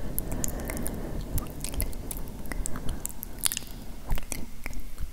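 ASMR mouth sounds made right against a handheld recorder's microphone: an irregular string of wet clicks and smacks, with fingers rubbing on the recorder's body underneath.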